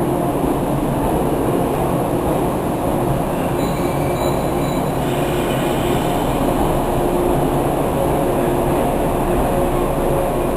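A 485-series electric train running into a station platform, with a steady rumble of wheels on the rails and a faint, broken wheel squeal.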